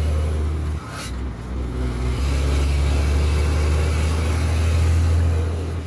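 Scania truck's diesel engine through a straight-piped exhaust, heard from inside the cab while driving: a steady low drone. About a second in it dips briefly with a sharp click, then pulls steady again. The exhaust-brake valve is stuck partly open, which the owner blames for the noise.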